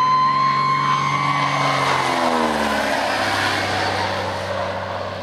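Cessna 180 floatplane's six-cylinder engine and propeller passing low overhead: a loud drone whose pitch drops about two to three seconds in as the plane goes by, then fades as it climbs away.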